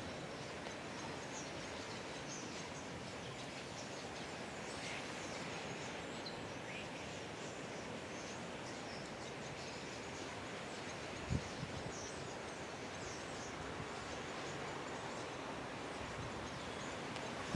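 Faint, scattered high chirps from a starling murmuration over a steady outdoor hiss, with a single low thump about eleven seconds in.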